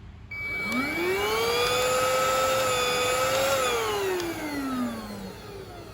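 Deerma VC01 handheld cordless vacuum cleaner's motor switched on: a whine rises as it spins up, runs steadily for about two seconds, then falls in pitch as the motor winds down.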